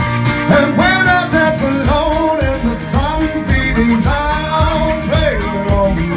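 Live music: a man singing into a microphone over a strummed acoustic guitar.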